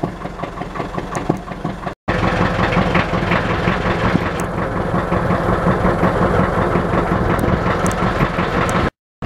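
Motor boat's engine running steadily at low speed, quieter for the first two seconds and then louder, with two brief dropouts to silence.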